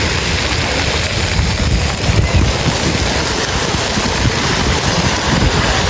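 Wind buffeting the microphone with an uneven low rumble, over a steady rush of splashing water.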